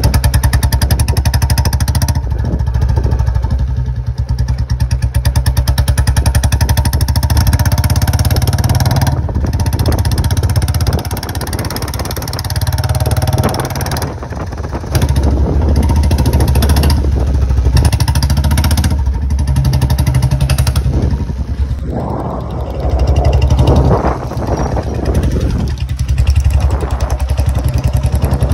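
Royal Enfield Bullet 350 J-series single-cylinder engine running loud through an aftermarket short-bottle 'Mini Punjab' silencer while the bike is ridden, a rapid, even beat of exhaust pulses. The throttle eases off and opens again a few times.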